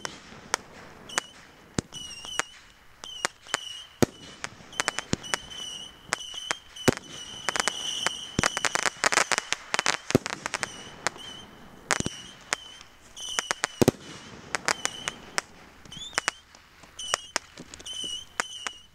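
Consumer fireworks cake firing aerial shots, a rapid series of sharp bangs and pops with short whistles between them. About eight seconds in there is a dense stretch of crackling.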